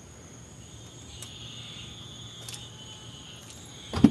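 Crickets or other night insects chirring steadily, one high continuous tone with a second shimmering chorus joining after about a second, with a few faint clicks. A single sharp thump near the end is the loudest sound.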